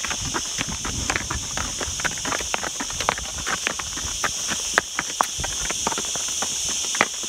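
A mule's hooves clip-clopping at a walk on a dry dirt and stone trail, irregular sharp steps several a second, over a steady high-pitched hiss.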